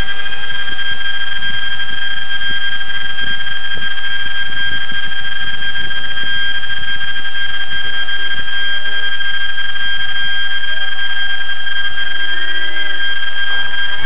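A steady, high-pitched electronic whine with a couple of overtones, unchanging while the RC flying wing's onboard electronics sit powered up on the ground.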